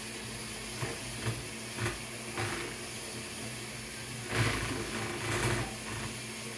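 Electric stand mixer running with a steady hum, beating powdered sugar into butter for buttercream in a glass bowl. Several brief knocks and scrapes against the bowl come through over it, the loudest a little after four seconds in.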